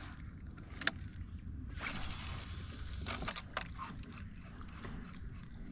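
Faint clicks and knocks of a fishing rod and reel being handled in a kayak, with a hiss lasting about a second near the middle.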